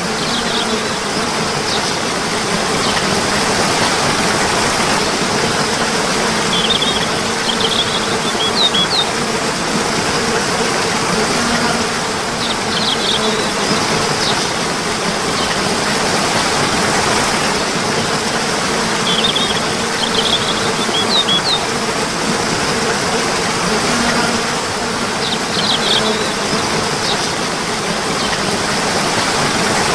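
Steady rushing stream water, with short bursts of high bird chirps breaking in every five or six seconds and a faint low hum underneath.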